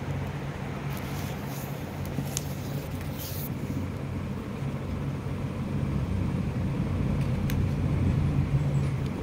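Steady low mechanical hum, a little louder in the second half, with a few faint light clicks.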